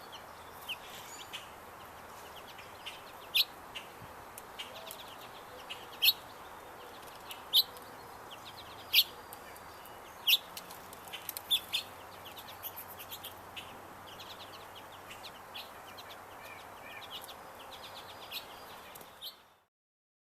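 Wild birds chirping and calling: many short, high chirps, with about five much louder, sharp calls in the first half, over a steady background hiss. The sound cuts off near the end.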